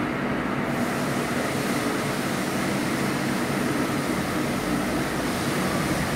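Steady hum of a hydraulic CNC press brake's pump unit running at idle with the machine powered on. A higher hiss joins in under a second in.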